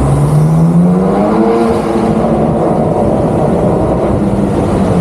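An engine running loudly and steadily, its pitch rising over about the first second and then holding.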